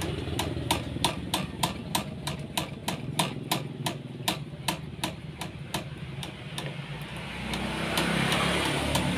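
Steady metallic tapping, about three strikes a second, each with a short ring, over the low hum of an engine running in the background. The tapping stops about two-thirds of the way through, and the engine noise grows louder near the end.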